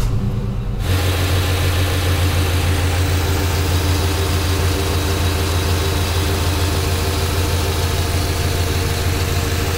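1995 GMC Suburban's 5.7-litre throttle-body-injected V8 catching about a second in, then idling steadily just after a running valve adjustment; the owner finds it sounds good, with nothing abnormal.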